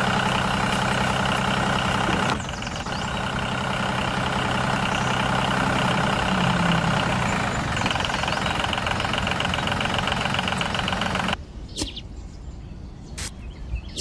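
Tractor engine idling steadily. Its note dips briefly about two seconds in and cuts off suddenly near the end, followed by a few light clicks.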